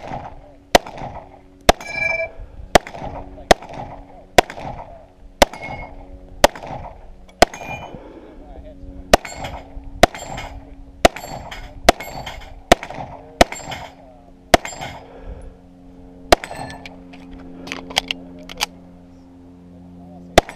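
Semi-automatic pistol firing a long string of shots, roughly one a second with a few longer gaps, at steel targets; some shots are followed by the brief ring of struck steel.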